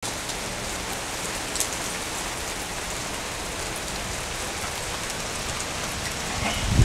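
Steady downpour of rain on garden plants and surfaces, with a few scattered sharp ticks. A loud low rumble swells in just before the end.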